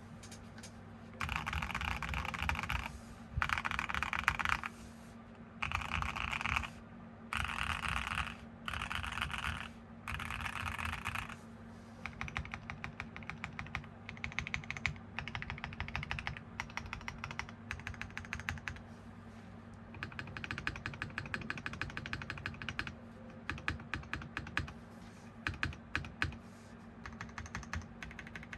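Typing on a Mode Sonnet custom mechanical keyboard with stock WS Quartz switches on a carbon fiber plate: a poppy, clacky sound. About a second in come six dense bursts of very fast keystrokes, each one to two seconds long. From about twelve seconds it settles into ordinary typing with separate keystrokes.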